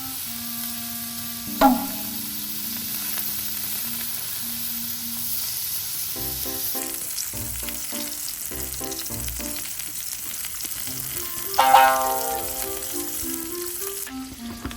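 Food frying in a pan with a steady sizzle, under background music of short melodic notes and chords, with two brighter flourishes of notes, one early and one about twelve seconds in.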